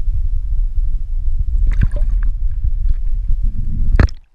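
Loud, muffled low rumble of river water heard through a camera held underwater, with a few faint clicks. About four seconds in there is one sharp knock and the rumble cuts off as the camera comes up out of the water.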